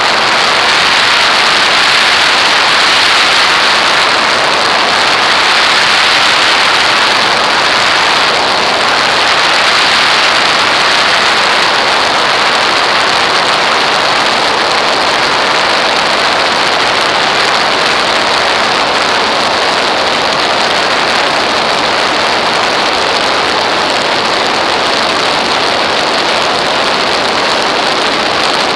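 Steady rush of air over a camera mounted on an aircraft's wing in flight: a loud, even hiss with no clear engine note standing out.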